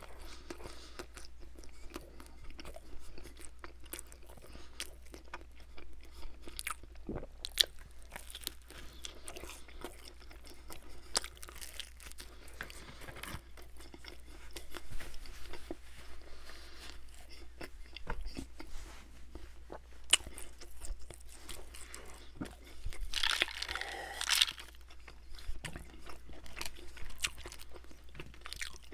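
Close-miked chewing of Domino's Brooklyn-style pizza crust, which is crisp like a water cracker, with many small, sharp crunches and wet mouth sounds. A brief, louder rushing noise comes about three-quarters of the way through.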